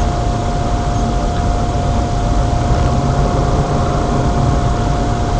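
Car cabin noise picked up by a dashcam's built-in microphone: a steady low engine and road rumble with a thin, steady whine held at one pitch.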